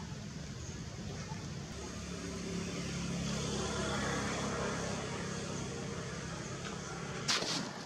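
A motor vehicle passing: a steady low rumble swells for a couple of seconds, its pitch gliding, then fades. A short sharp crackle comes near the end.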